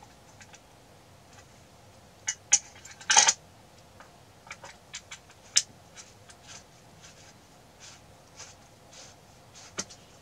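Hands fitting the power compensator onto a magnetic loop antenna's plastic enclosure: scattered clicks, taps and light scrapes of parts being handled and connected. The loudest is a short scraping rustle about three seconds in, with single sharp clicks later on.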